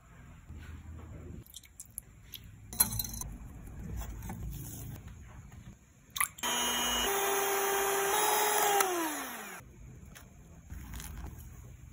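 Electric hand mixer whipping egg whites in a glass bowl: it starts about six seconds in, steps up in pitch, and its whine falls away as it is switched off about three seconds later. Before it, a few light taps and clinks in the bowl.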